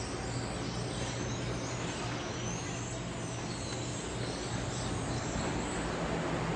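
Steady mechanical hum and noise of running machinery in a dairy barn equipment room, with an even low hum under a constant hiss.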